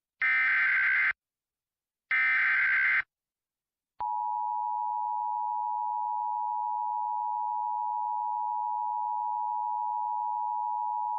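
Two bursts of Emergency Alert System SAME header data, a harsh warbling electronic buzz each about a second long and a second apart. About four seconds in, the steady two-tone EAS attention signal (853 and 960 Hz) starts and holds, announcing the next warning message.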